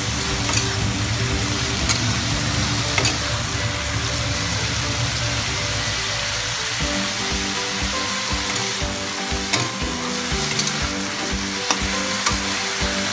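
Water lily stems and prawns sizzling in hot oil in a metal kadai as they are stir-fried. A metal spatula scrapes and clicks against the pan now and then.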